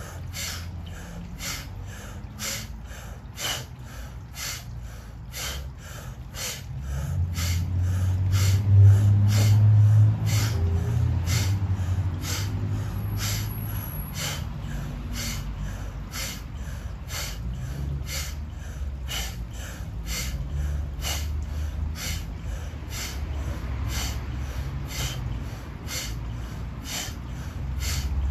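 Rapid, forceful sneeze-like exhales through the nose, about two a second, each following a quick inhale through the mouth: a breathing drill meant to build and release pressure in the head. A low rumble swells for several seconds in the middle.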